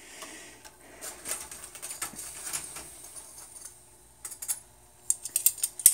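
Metal kitchen tongs clicking and tapping against a wire rack: a run of sharp, quick clicks in the last two seconds, after a stretch of light crackling.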